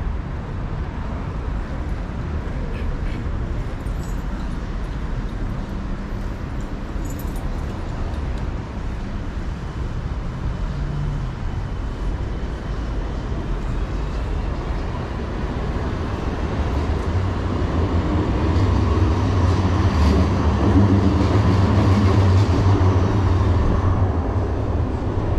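City street traffic noise, steady throughout, with a heavy vehicle's low engine drone building in the last third, loudest shortly before the end and then easing.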